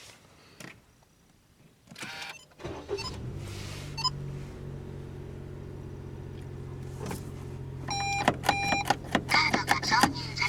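A few clicks, then about three seconds in the Daihatsu Move Custom RS's engine starts and settles into a steady idle. Near the end a dashboard warning chime beeps several times, with clicking around it.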